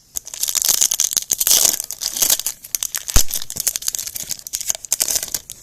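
Foil trading-card pack being torn open and its wrapper crinkled, a dense crackle for the first couple of seconds, then a run of small crackles and clicks with one sharp click about three seconds in.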